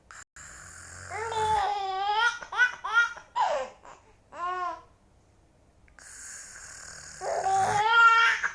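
A baby laughing hard from being tickled: two bouts of high-pitched giggles with a short pause between them, each bout opening with a breathy rush of noise.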